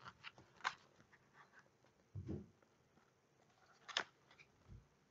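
Quiet handling of an open photo book being lifted and held up: a few sharp paper clicks and rustles, and a couple of soft low thuds.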